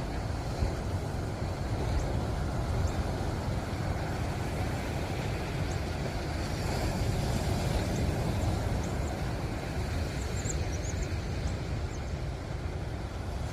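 Ocean surf washing in, a steady rumbling noise that swells and eases.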